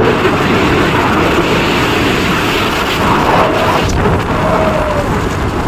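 Wind buffeting the microphone on a Bajaj Pulsar 125 motorcycle riding at about 74 km/h, a steady rumble with the bike's engine and road noise underneath.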